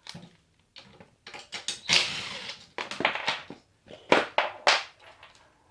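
Clicks, clacks and knocks of hand tools and metal parts being handled at the front axle of a Huffy Slider trike as a quick-release front end is fitted. There is a brief scraping rush about two seconds in and two sharp knocks a little past the middle.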